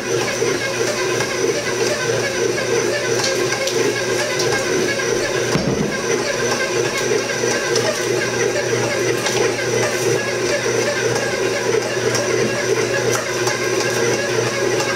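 Stand mixer's motor running steadily on a low speed setting, its dough hook turning flour in the steel bowl as the yeast mixture is added, with a few light clicks.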